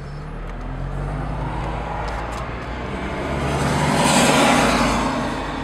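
Steady engine and road hum heard from inside a moving car. A rush of tyre and road noise from a passing vehicle swells to a peak about four seconds in, then fades.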